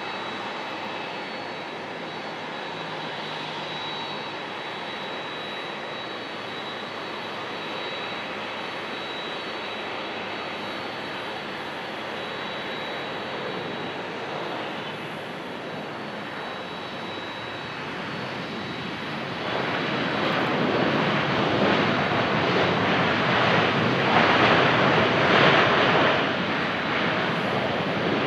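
Jet engines of a Boeing 777-300ER coming in to land: steady jet engine noise with a thin high whine, getting clearly louder about two-thirds of the way through.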